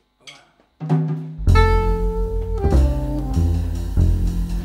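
A jazz trio of soprano saxophone, double bass and drum kit starts playing together about a second in, after one last evenly spaced count-in click. Double bass notes and drums sit under the soprano saxophone's held melody notes.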